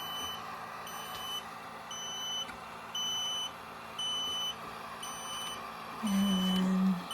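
Egg incubator's temperature alarm beeping, a high beep about once a second, each lasting about half a second, over a steady hum. The alarm sounds because the temperature inside has fallen below 99 °F with the lid open.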